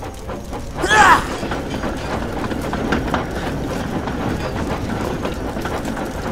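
Steady rumbling clatter of trains and trucks rolling along the track, full of small clicks. A short, loud pitched cry sweeps up and down about a second in.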